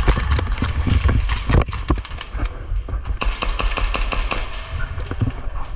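Airsoft guns firing during close-quarters play: many irregular sharp pops and clicks, thickest in the first two seconds, over steady low bumping and rustle.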